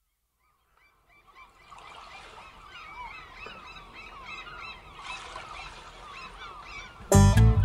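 A flock of birds calling, many overlapping squawks fading in gradually. About seven seconds in, a band comes in loudly over them.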